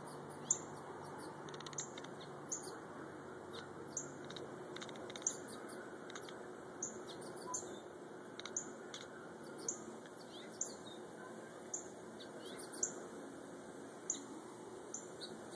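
A small pet grinding its teeth: short, sharp, high clicks at irregular intervals of about a second.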